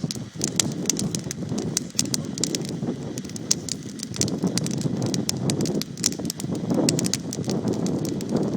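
Fire burning, crackling with many sharp irregular pops over a steady low rushing noise.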